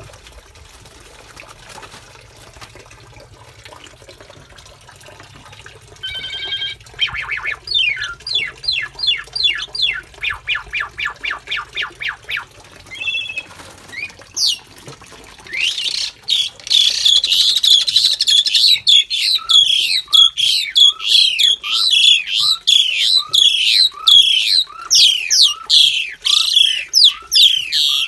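Asian pied starlings (jalak suren) calling. After a few quiet seconds comes a run of quick repeated notes, and from about halfway a loud, fast series of harsh downward-sliding calls, about two a second.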